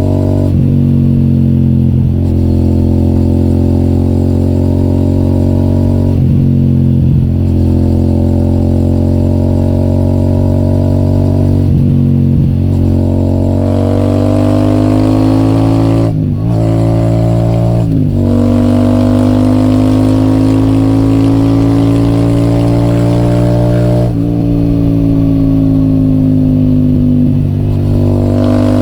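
Royal Enfield Super Meteor 650's 648 cc parallel-twin running through an AEW TE 202 aftermarket exhaust while riding, a steady engine note that briefly dips and picks up again several times as the throttle is eased and reopened, settling a little higher about two thirds of the way in.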